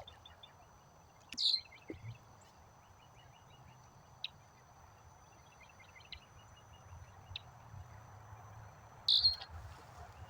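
Outdoor chorus of small animals calling in trains of rapid chirps, with two louder sharp calls about a second and a half in and near the end.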